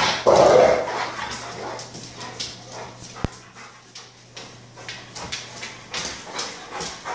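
Dog vocalizing: a loud, short dog sound about half a second in, then fainter scattered noises and a single sharp click a little over three seconds in.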